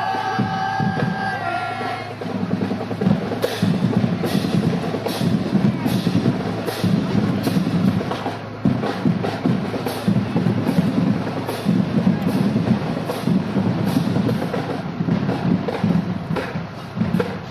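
Marching band drumline playing a steady cadence on snare and bass drums, with sharp snare strokes about twice a second over booming bass drum hits. A held pitched note sounds for the first two seconds.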